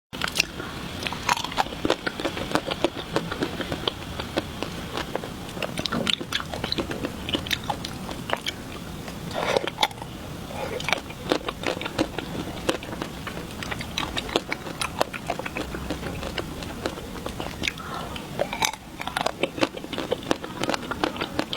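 Close-miked eating of chocolate ice cream: irregular bites and chewing with many sharp mouth clicks.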